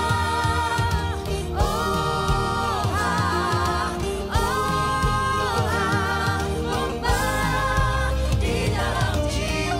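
A song: solo voices singing in turn, male then female, with long held notes and vibrato over backing music.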